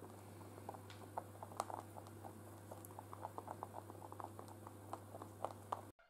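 Rabbits munching hay: a quick, irregular run of faint crunching clicks, over a steady low hum.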